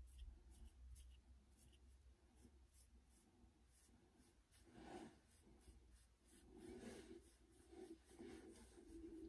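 Near silence, with faint scratchy rustles of fingertips picking and teasing oiled, coily hair.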